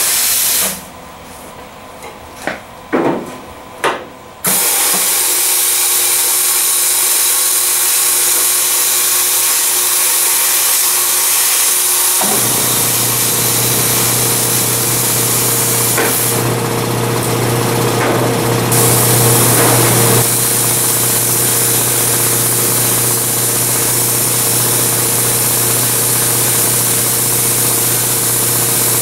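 Snap-on YA2225 plasma cutter with an Alpha 3A air torch: compressed air hissing through the torch, first in a few short blips, then steadily. From about twelve seconds in a steady low buzz joins as the arc cuts the steel tailgate.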